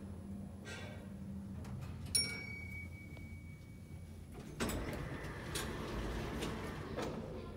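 A 1971 lift arriving at a floor: its steady hum stops, then a sharp clunk with a high ding comes about two seconds in. About halfway through, the car's sliding doors run open.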